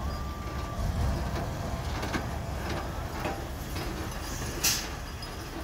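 Loaded dump truck's diesel engine running in a low, steady rumble as the truck creeps forward. A single sharp knock comes about four and a half seconds in.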